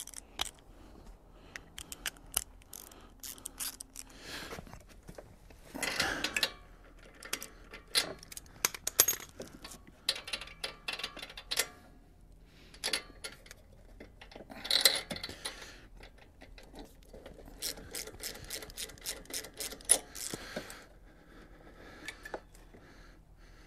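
Socket ratchet clicking and metal tools clattering as the spark plug is taken out of a lawnmower engine, irregular clicks with a few louder bursts.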